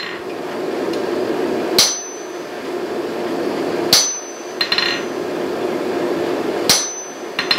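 Hammer blows driving a hot punch through a mild steel bar. Three heavy strikes about two and a half seconds apart, each with a short high ring, with lighter taps between them and a steady rushing noise underneath.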